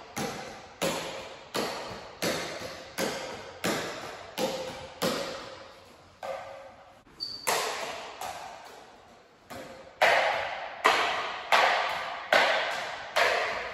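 Juggling clubs smacking into the hands at each catch, about one sharp slap every three-quarters of a second, each ringing on in a reverberant hall. There is a short pause about six seconds in, and the catches are louder from about ten seconds on.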